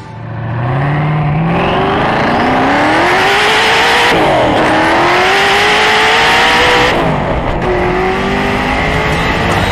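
Hennessey Venom GT's twin-turbo V8 at full throttle, rising in pitch as the car accelerates hard, with two upshifts, about four seconds in and again about seven seconds in.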